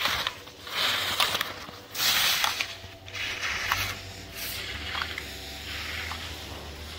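Slalom skis carving turns on firm snow: bursts of edge-scraping hiss about once a second, loudest in the first few seconds, with a few sharp clicks.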